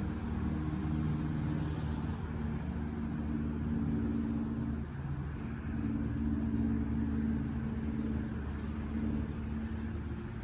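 A steady low hum with a few held low tones that shift every few seconds.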